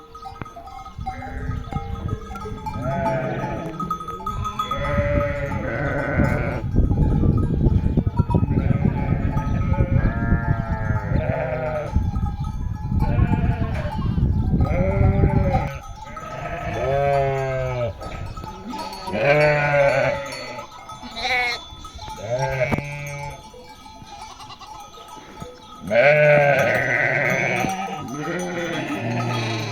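A flock of sheep bleating, many calls overlapping and following one another. A dull low noise runs under the calls for several seconds in the middle.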